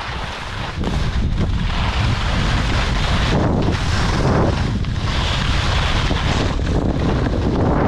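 Wind buffeting a camera microphone as a skier runs downhill at speed, with the skis hissing over the snow. The hiss surges a few times in the middle of the run.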